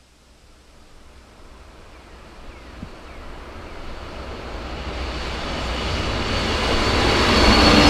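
A train approaching, its rumble growing steadily louder over several seconds, with a faint high squeal coming in near the end.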